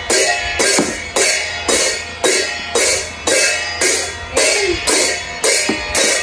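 Two pairs of jhyamta, brass hand cymbals held on cords, clashed in a steady dance beat of about two strokes a second, each clash ringing on.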